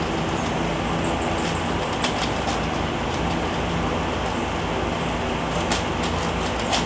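Steady background noise with a faint low hum, over which the plastic layers of an Eastsheen 5x5 cube click and clack as they are turned, with a few sharper clacks, the loudest near the end.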